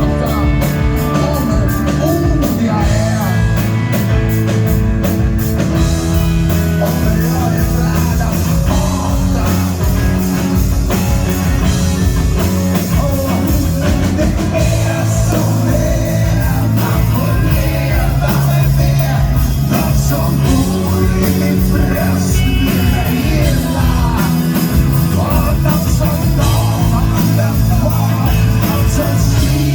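Live rock band playing loud and fast, with bass and a steady drum beat and a man singing.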